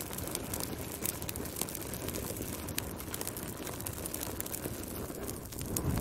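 Wood fire burning in a fireplace: a steady low rush of flame with frequent sharp crackles and pops, swelling louder near the end.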